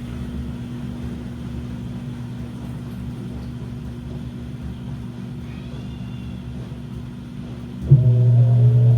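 Washing machine running with a steady low hum. Near the end its motor kicks in suddenly, much louder, with a whine that slowly rises in pitch as it speeds up.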